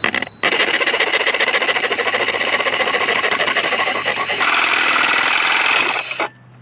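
Reciprocating saw cutting through steel, a continuous rasp of rapid, even strokes that gets louder partway through and cuts off suddenly near the end.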